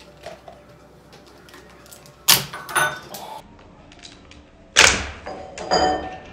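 Kitchen counter handling noises: two loud sudden knocks about two and a half seconds apart, each with a short clatter after it, and lighter clicks between them.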